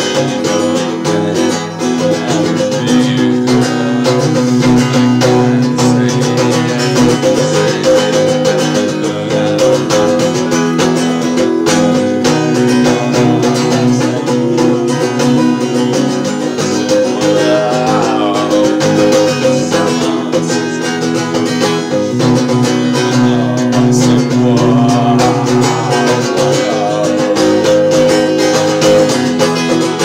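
Acoustic guitar strummed in steady chords, with a man singing over it.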